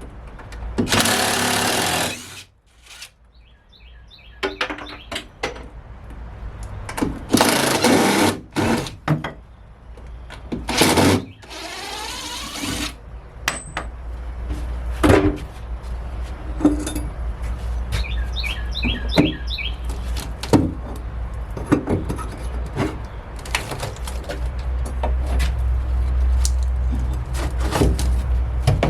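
Hand demolition of a scrap-wood structure: plywood, chipboard and lattice being pried, pulled loose and dropped, with repeated sharp knocks and several scraping, crashing bursts of a second or two, mostly in the first half. A steady low hum runs under the second half.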